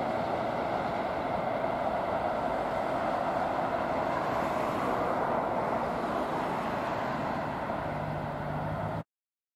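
Freight wagons of a long works train rolling over the track, a steady wheel-on-rail rolling noise that eases a little as the last wagons pass and draw away. A low hum comes in near the end, and the sound cuts off abruptly about nine seconds in.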